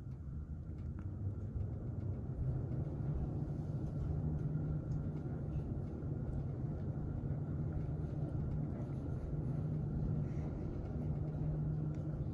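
Otis SkyRise high-speed traction elevator car riding upward: a steady low rumble and hum of the car travelling in the hoistway. It builds up over the first couple of seconds as the car accelerates, then holds steady at speed.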